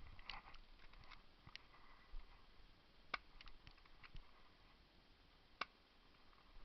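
Airsoft Taurus PT92 pistol: a cluster of light clicks in the first second and a half, then two single sharp clicks about two and a half seconds apart.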